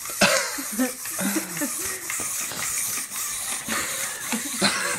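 People laughing and murmuring in short fragments over a steady hiss, with a few sharp knocks about a quarter second in, near one second, and just before the end.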